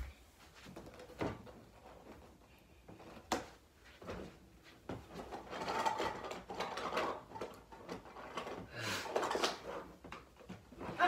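Plastic toy kitchen pieces being handled: a couple of sharp knocks, then stretches of rustling and clattering as toys and plastic bins on the play kitchen are moved about.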